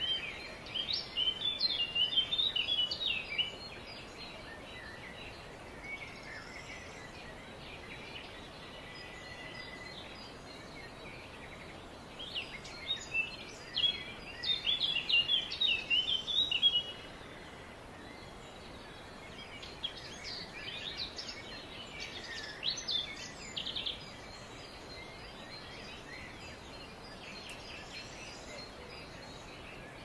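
Songbirds singing in three bouts of rapid high chirping notes over a steady background hiss.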